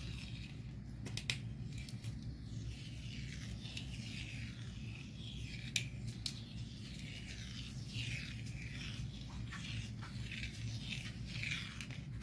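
Heat transfer vinyl being weeded by hand: the waste vinyl peels off its clear carrier sheet in repeated short, scratchy pulls, with a few sharp clicks, over a steady low hum.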